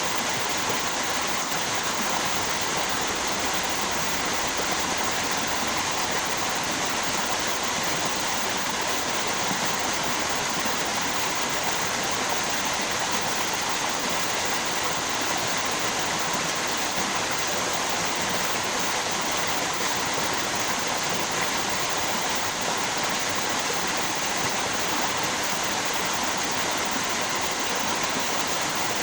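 Flowing river water rushing steadily, with an even, unchanging sound.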